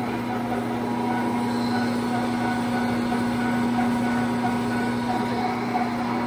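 Large engine lathe running steadily with an elevator motor rotor spinning in its chuck, a constant machine hum with a steady whine and no change in pitch.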